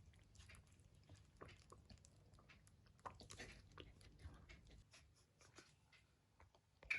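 Faint, irregular small clicks and smacks of a kitten chewing as it eats, with a brief sharper sound right at the end.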